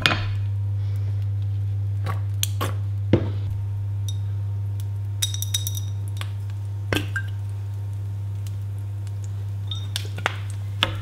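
A glass bottle handled at the stove: a few light clinks and taps, with one brief ringing glass clink about five seconds in, over a steady low hum.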